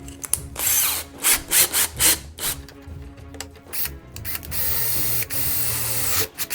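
Workshop tool noise: a run of short rasping strokes, then a steady power-tool whir lasting about two seconds, over background music.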